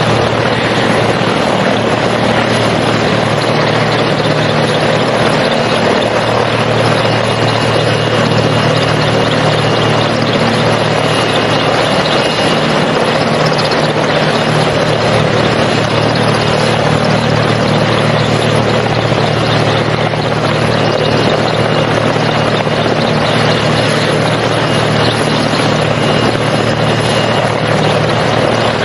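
Helicopter running steadily: continuous rotor and engine noise with a steady low hum and no change in level.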